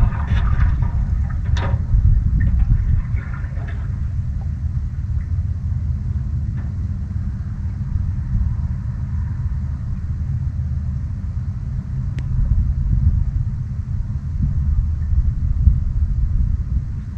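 Wind buffeting the microphone, a steady low rumble. A few water splashes come against the canoe in the first few seconds, and there is a faint click near the middle.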